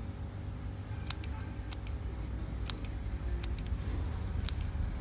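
Small scissors snipping: sharp double clicks of the blades, five pairs in a row starting about a second in, over a low steady rumble.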